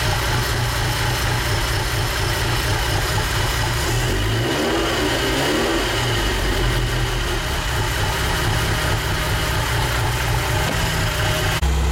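1985 Ferrari Mondial Quattrovalvole's V8 idling steadily while it warms up after a cold start on fresh oil. The engine note wavers briefly about halfway through and shifts abruptly to a deeper steady hum near the end.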